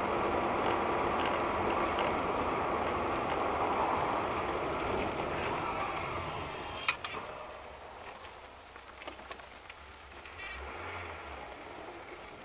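Vehicle noise: a steady rushing that fades away from about six seconds in, with a sharp click about seven seconds in.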